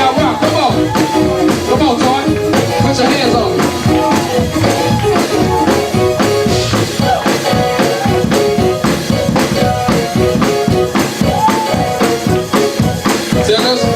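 Live upbeat gospel praise music from a church band, with drums beating out a steady, even rhythm under a melody that bends and moves.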